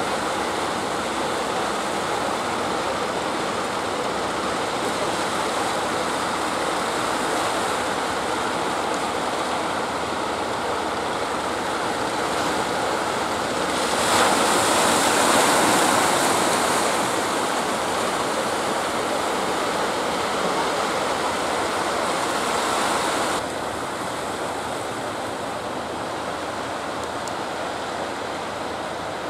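Steady rush of choppy sea water and surf, swelling louder for a few seconds around the middle, then dropping suddenly to a slightly lower level.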